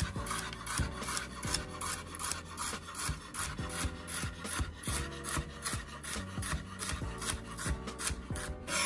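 Chef's knife chopping callaloo stems on a wooden cutting board: quick, even chops, several a second, the blade knocking on the board with each stroke.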